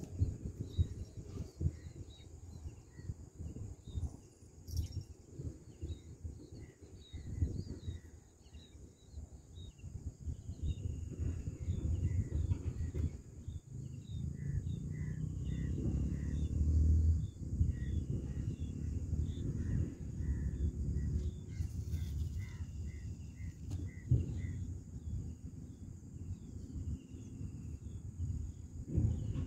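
Open-air riverside ambience: a low, uneven rumble like wind noise, with small birds chirping and giving short calls on and off.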